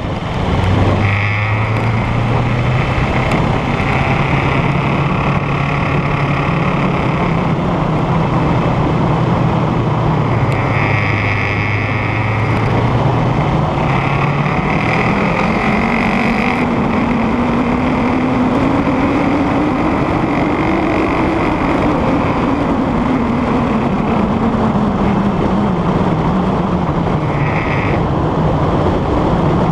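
Kawasaki ER-6n's parallel-twin engine running under way, with wind rush on the microphone. The engine note holds low for the first dozen seconds, then climbs steadily to a peak about two-thirds of the way in and eases back down near the end.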